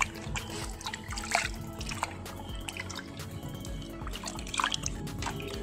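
Water splashing in a metal bowl as whole pomfret are rinsed and rubbed by hand, in irregular splashes and drips, over steady background music.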